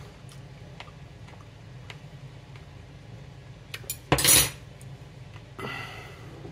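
Kitchen dishes and utensils being handled: a few light clicks, then a short, loud clatter of kitchenware about four seconds in, over a low steady hum.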